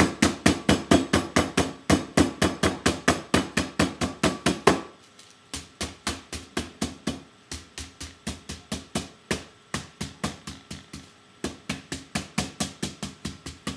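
Meat tenderizer mallet pounding chicken breasts flat through parchment paper: rapid strikes, about five a second, in three runs with two short pauses. The first run is the loudest.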